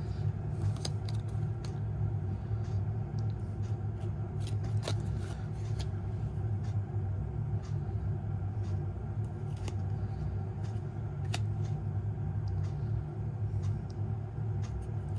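Trading cards being flipped through by hand, with small scattered clicks and rustles as each card is slid off the stack, over a steady low hum.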